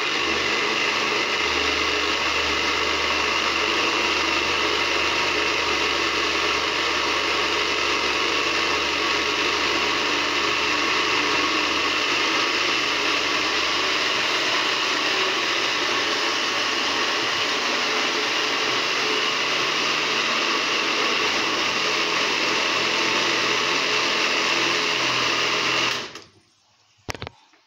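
Electric countertop blender running steadily on a liquid mix, switched on at the start and stopping abruptly near the end.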